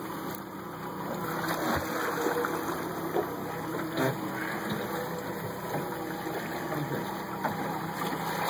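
Water rushing and splashing against a boat's hull, with a steady engine hum underneath.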